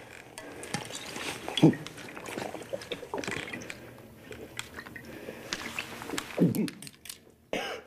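Liquid being poured and splashing, with irregular small clicks. A man's voice sounds briefly twice, about a second and a half in and again after about six seconds.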